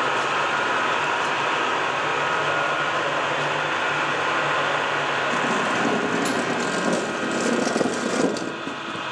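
Lodge & Shipley 21 x 98 heavy-duty engine lathe running under power at a slow spindle speed of 36 RPM: a steady hum of the geared headstock and its 10 HP drive, with a faint whine. In the last few seconds it turns uneven, with clicks and clatter.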